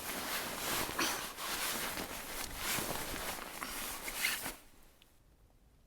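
Close fabric rustling and scraping, like a tent or sleeping bag being handled, stopping abruptly about four and a half seconds in.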